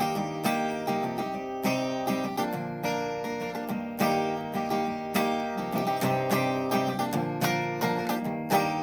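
Acoustic guitar music, plucked and strummed with a steady rhythm.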